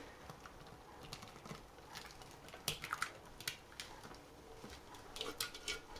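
Faint, scattered light ticks and patter of a thick honey, butter and flaked-almond mixture being poured from a Thermomix steel mixing bowl onto a cake in a baking dish, the ticks coming more often near the end.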